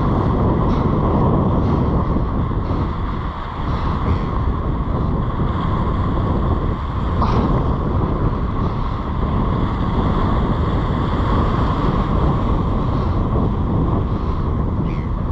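Steady wind buffeting the microphone, with small waves washing on the shore.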